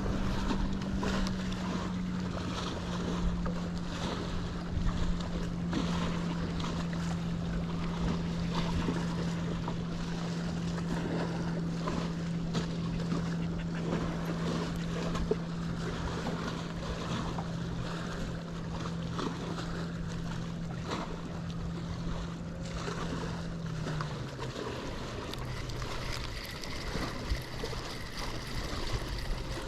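A boat's motor running with a steady hum that dips slightly about a second in and drops lower about 24 seconds in, over wind and water noise.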